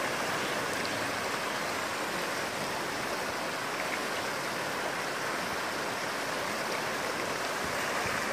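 Shallow river flowing steadily over stones, an even rush of water.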